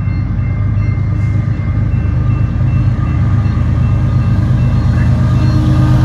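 A pair of GE Evolution-series diesel locomotives, an ES44C4 leading an ES44DC, rumbling steadily on an approaching empty coal train and growing slightly louder, with a grade-crossing bell ringing.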